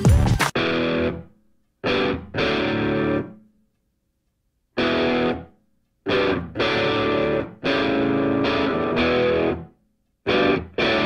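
Background music: a distorted electric guitar playing blues chords in stop-time. Each chord rings for a second or so, then cuts off into complete silence before the next one.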